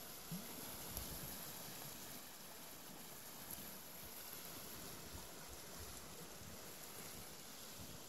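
Small stream rushing steadily over a shallow riffle and around a boulder. There are two brief low bumps on the microphone near the start.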